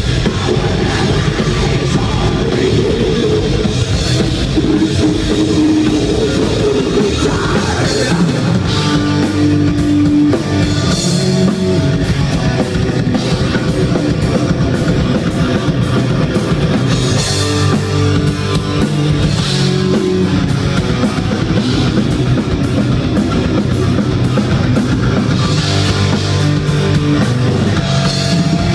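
Live metal band playing loud: distorted electric guitars and bass over fast drumming on a drum kit with cymbals.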